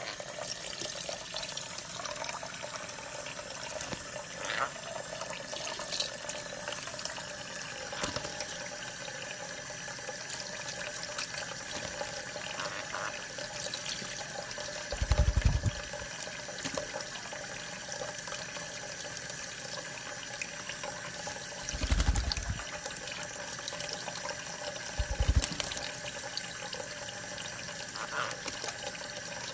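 Steady running water, like a tap running. Three dull low thumps break in, about halfway through and twice more later.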